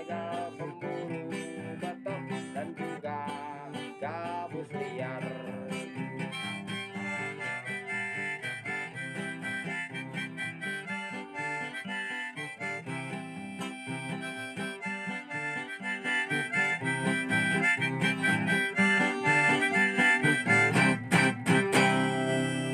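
Instrumental background music with held melody notes over a repeating accompaniment, getting louder about two-thirds of the way through.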